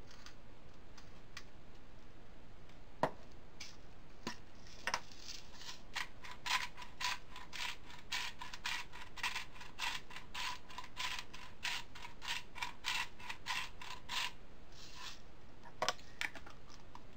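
Hand-turned spice grinder clicking as it grinds seasoning into the pan. A few scattered clicks come first, then a fast, even run of about three clicks a second lasting some eight seconds, and a couple more clicks near the end.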